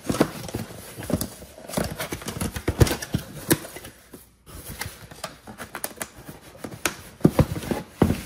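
A cardboard shipping box being opened and handled by hand: flaps folding back and cardboard rustling and scraping, with the smaller boxes inside knocking and sliding as they are pulled out, in irregular clicks and taps.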